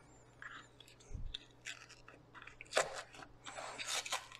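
A paperboard carton of heavy cream being pried and torn open by hand: a series of short papery tearing and crinkling sounds, loudest about three seconds in, with a soft low thump a little after one second.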